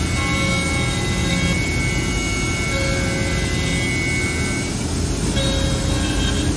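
HT-1325RBS CNC router running, its router spindle cutting wood: a steady loud machine noise with several high whining tones that change about three quarters of the way through.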